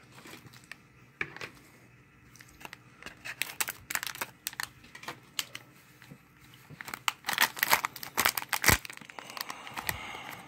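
Foil blind bag being crinkled in the hands and torn open, with scattered crackles that grow into a denser, louder stretch of tearing and crinkling in the last few seconds.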